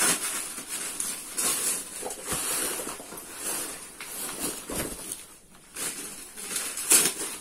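Bubble wrap and plastic packaging rustling and crinkling in irregular bursts as it is handled, with a sharper crackle about seven seconds in.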